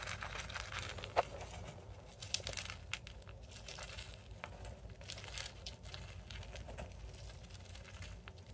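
Wood-shaving and paper bedding rustling and crinkling as a small pet rodent digs through it, in irregular scrabbles and small clicks, with one sharper click about a second in.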